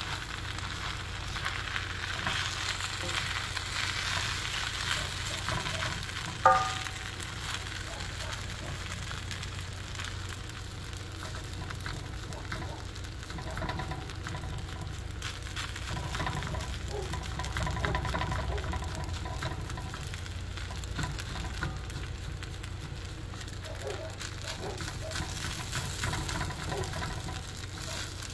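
Fried rice with egg and onion sizzling steadily in a HexClad hybrid pan while it is stirred and tossed with tongs, with small scraping clicks throughout. About six seconds in, one sharp clink with a short ring, the tongs striking the pan.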